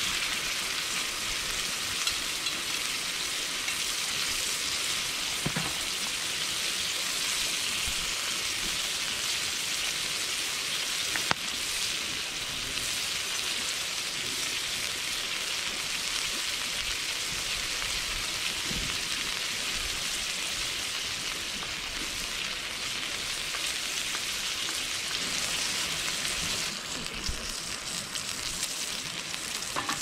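Food sizzling steadily on a hot iron plate over a charcoal fire, with one sharp click about eleven seconds in. The sizzle turns a little softer near the end.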